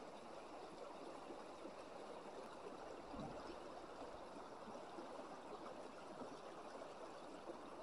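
Mountain river running fast over stones in a shallow riffle: a faint, steady rushing of water.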